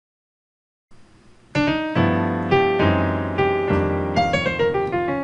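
Digital piano played with struck chords and a falling run of notes, starting about a second and a half in, each attack fading away.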